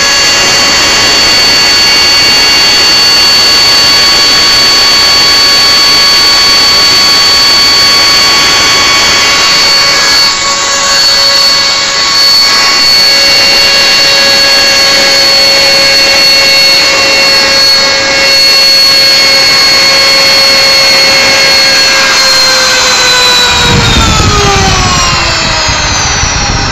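Homemade micro turbojet engine running at steady speed: a loud high-pitched whine over a rushing roar. About 22 seconds in, the whine starts to fall steadily in pitch as the engine winds down, and a low rumble joins it shortly after.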